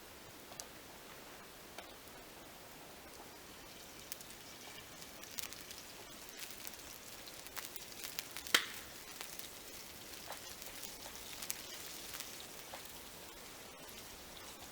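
Cooking over a wood fire: a steady sizzling hiss with scattered crackles and pops, and one sharp crack about eight and a half seconds in.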